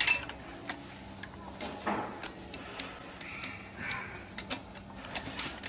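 Irregular metal clicks and taps of a socket wrench working on the starter motor's mounting bolts.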